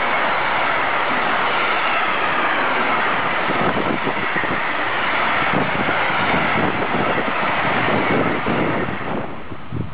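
Intermodal freight train of container wagons rolling past at close range: steady steel-wheel-on-rail noise with a run of knocks as the wagons' wheelsets go by. It drops away suddenly near the end as the last wagon passes.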